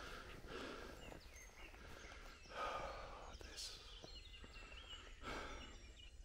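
Quiet woodland: a few soft breaths close to the microphone, about two and a half seconds apart, with faint short bird chirps in the background.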